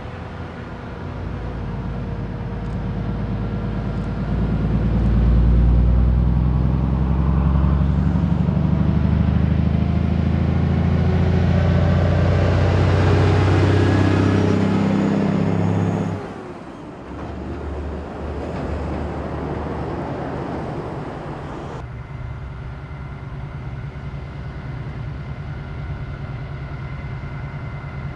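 Heavy-haul truck's diesel engine pulling an oversize load, growing louder as it approaches and loudest about halfway through. It drops away suddenly, then the engine is heard again running steadily close by.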